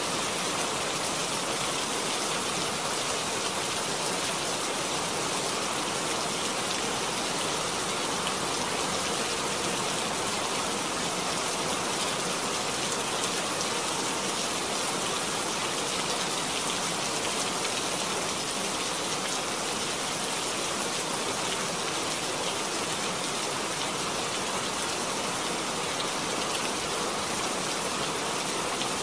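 Steady rain falling, a dense even hiss of countless small drop ticks with no lulls or gusts.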